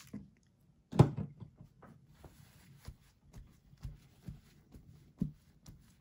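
Handling noise on a craft mat: one sharp knock about a second in, then a string of softer knocks and thumps as tools and a cloth are set down and pressed onto the work surface.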